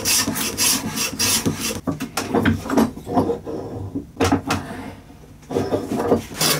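Metal hand plane shaving a wooden knife handle thinner in quick repeated strokes, about four a second. The strokes stop for a couple of seconds past the middle, with one knock, then start again near the end.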